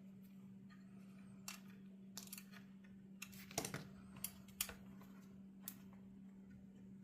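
Small, irregular clicks and taps of a screwdriver and screws against the plastic radio display assembly while it is screwed together, the loudest cluster a little past halfway, over a faint steady hum.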